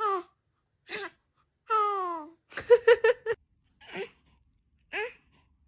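Baby's short, high-pitched squeals and babbling sounds, one after another with gaps between, most falling in pitch, and a quick run of rapid giggles about three seconds in.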